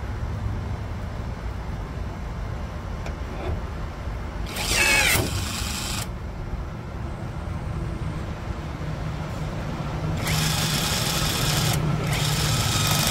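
Cordless rivet tool's motor running in short bursts as it pulls blind rivets through a Lexan panel. There is one burst of about a second and a half about five seconds in, falling in pitch, then two more back to back near the end.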